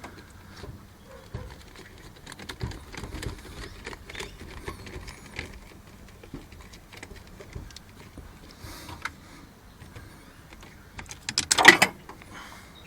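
Hands working small plastic and metal parts on a truck's steering column: scattered light clicks and rustles, with a brief, louder rattling clatter of several quick clicks near the end.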